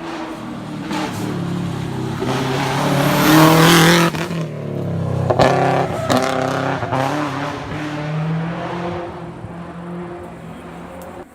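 Racing car engine accelerating hard past, revs climbing to a loud peak about four seconds in and dropping sharply at a gearshift, then rising and falling again through further gears. There is a sharp crack about five seconds in.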